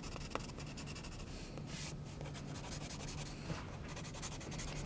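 Soft graphite pencil scratching on drawing paper in quick repeated back-and-forth strokes, the side of the lead laying in shading.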